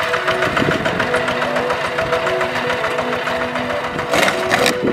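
Walking tractor's single-cylinder diesel engine chugging steadily under load as it pulls a disc plough through the soil, with a short noisy rush about four seconds in.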